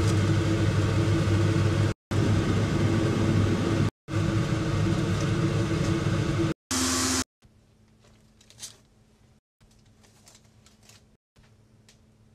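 Steady mechanical hum and rush of a running kitchen stove while a crepe cooks in a pan, broken by three brief cuts. After about seven seconds it drops to a faint background with a few light taps.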